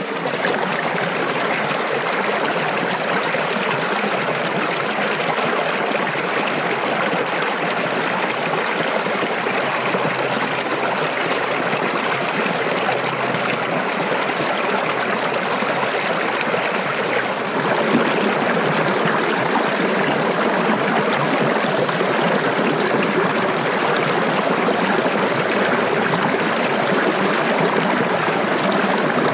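Small mountain stream running over rocks beneath shelves of ice: a steady rush of water close to the microphone, getting a little louder about two-thirds of the way in.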